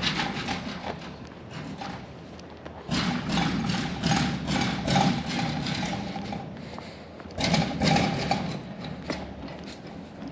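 Footsteps on dry, sandy ground as a handheld camera is carried along, with louder stretches of low rumble about three seconds and seven and a half seconds in.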